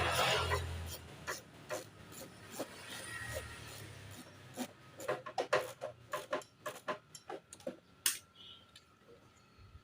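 Short metal clicks and knocks from hands and a wrench working the snail horn's mounting bolt, spacer and nut. It opens with a rustling scrape, and the clicks come quick and close together about five to eight seconds in.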